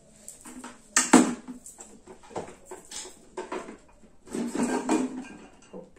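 Hard plastic food-storage containers being handled and knocked together: a sharp clack about a second in, then scattered taps and a longer stretch of clattering and rustling near the end.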